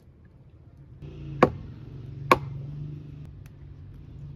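Two sharp knocks a little under a second apart, a drinking glass set down on a stone tabletop. A low steady hum starts about a second in.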